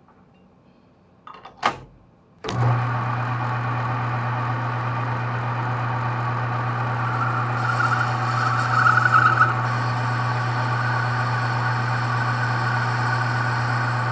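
A knock about a second and a half in, then a metal lathe's motor starts and runs with a steady hum. From about halfway through, a higher-pitched whine joins it as the cutting tool turns a taper on the spinning bar stock and throws off curled chips.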